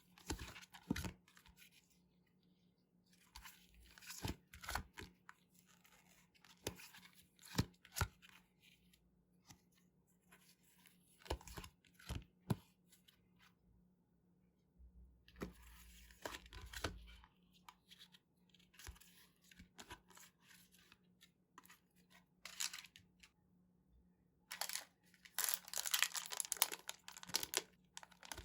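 Surprise packs of trading cards being torn open and handled: irregular tearing and crinkling of the packet wrappers with sharp clicks, growing denser and louder near the end.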